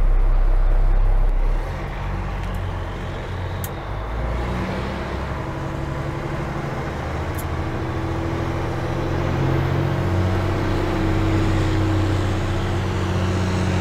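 Six-cylinder diesel engine of a 1983 Mack CF611 fire engine running. A loud low drone inside the cab drops suddenly about a second and a half in, then the engine is heard from the street as the truck approaches, growing louder near the end.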